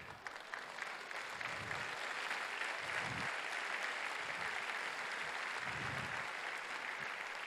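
Audience applauding, a steady clatter of many hands that builds in the first moments and tapers off near the end.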